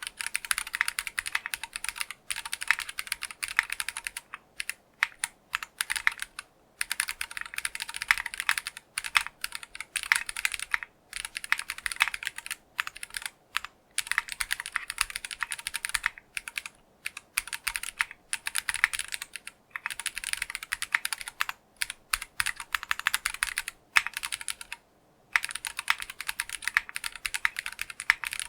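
Fast typing on an LM60 60% mechanical keyboard with factory-lubed Geonworks Clear switches, ePBT keycaps and an aluminium plate, its spacebar on a Cherry MX Hyperglide Black switch. Rapid keystrokes run in bursts, broken by brief pauses.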